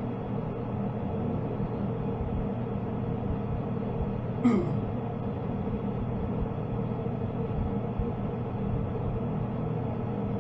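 A steady low hum made of several held tones, with one brief, louder sound about four and a half seconds in.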